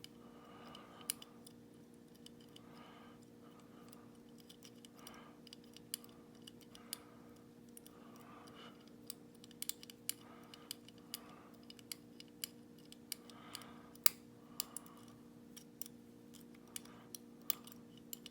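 Irregular small metallic clicks and ticks of a lever pick and tension tool working inside a Legge Insurance five-lever padlock during a picking attempt, some sharper than others, loudest about fourteen seconds in.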